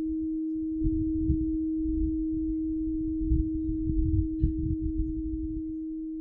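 Frosted quartz crystal singing bowl ringing on with one steady, pure tone that slowly fades, over a low uneven rumble.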